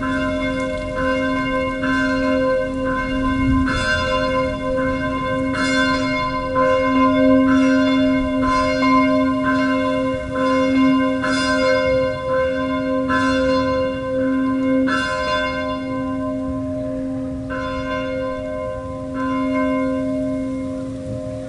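Church bell swinging full circle on its wheeled wooden headstock, the clapper striking about once a second over a steady, sustained ring. The strokes thin out near the end.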